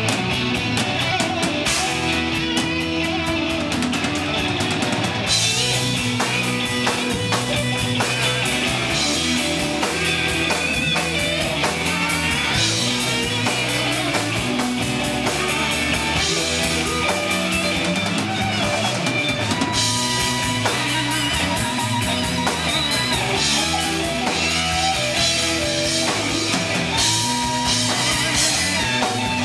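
Live rock band playing: electric guitar over a drum kit, with steady cymbal and drum hits.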